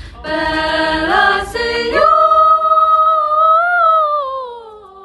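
Voices singing a cappella: a short sung chord, then a long held high note that swells and then slides down in pitch and fades away.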